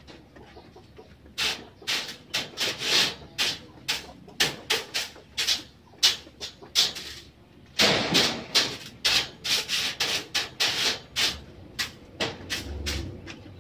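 Stiff broom or brush scrubbing and scraping a wooden rabbit cage in quick, uneven strokes, with a short pause about seven seconds in.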